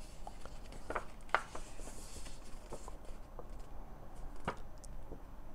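Handling of a thin cardstock instruction booklet as it is opened out: a few soft taps and clicks with a brief light rustle of paper, the sharpest tap near the end.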